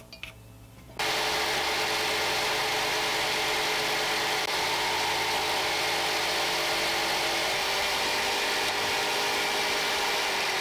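Jigsaw mounted under a wooden table, running and cutting through a wooden board with a steady motor buzz. The buzz starts abruptly about a second in.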